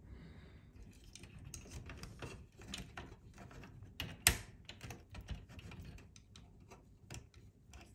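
Small irregular clicks and taps of plastic parts as a replacement pinch roller is worked by hand onto its arm in a Technics RS-TR474M2 cassette deck mechanism, with one louder click about four seconds in.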